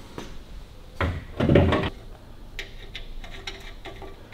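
A sharp knock about a second in, then a louder, heavier clunk, followed by light scattered clicks and taps as a small lamp and its nuts are fitted to a steel motorcycle-sidecar mudguard.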